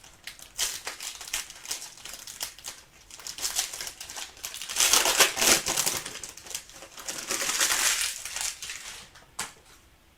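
Plastic or foil trading-card packaging being handled, torn open and crinkled, with many small clicks and two louder spells of crinkling in the second half.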